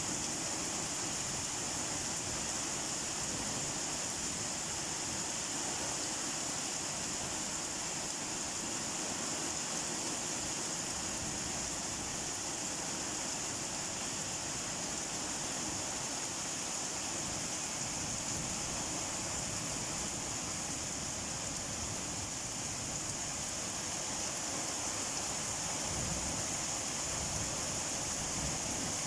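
Rain falling steadily, an even hiss with no single drops or breaks standing out.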